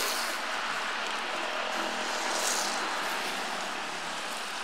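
Steady noise of road traffic passing on the street, engines and tyres, with a brief higher hiss about halfway through.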